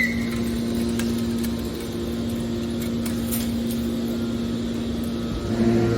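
Steady hum of running machinery, a constant tone over a noisy background, with a deeper hum joining near the end.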